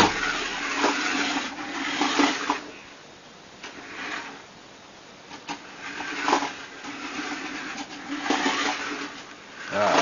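Small electric drive motor and gears of a toy RC car whirring in several bursts, the longest at the start, with a steady low hum under them; the car is snagged on its trailing control cables.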